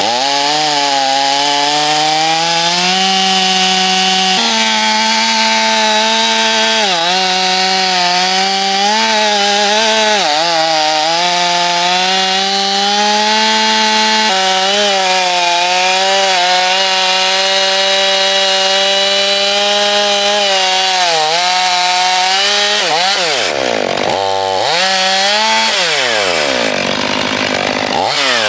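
Stihl MS 500i fuel-injected two-stroke chainsaw at full throttle, cutting through a big jarrah log; the engine pitch sags briefly under load several times. Near the end the throttle is let off and opened again a few times, the revs dropping and climbing.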